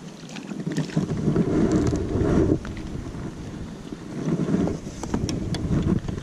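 Strong wind buffeting the microphone, swelling in two gusts, about a second in and again around four seconds in.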